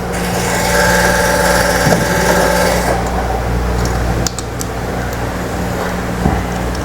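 A small motor whirs for a couple of seconds over a steady low mechanical hum, followed by a few faint light clicks.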